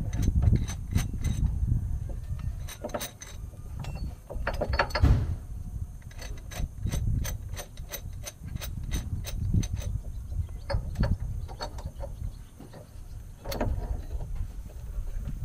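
Metal-on-metal clicks and clatter of a hydraulic press frame and cylinder being fitted and adjusted by hand around a ball joint, many small ticks with a few louder knocks, over a low handling rumble.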